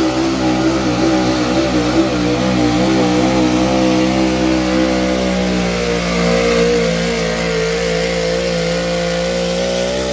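Pulling pickup truck's engine held at high revs under full load while dragging a weight sled, loud and continuous. The pitch wavers over the first few seconds, then holds steady.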